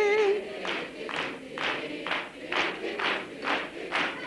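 Studio audience clapping in unison, a steady beat of about two claps a second. In the first half-second a woman's long, held call fades under it.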